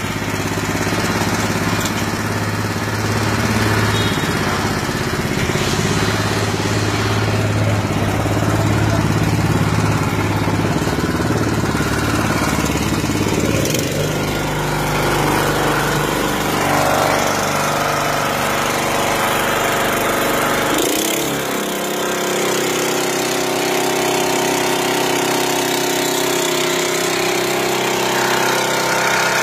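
Small engine-driven water pump on a bowser skid, running steadily under load while it feeds a fire-fighting hose and nozzle. Its engine note changes twice, about 14 and 21 seconds in.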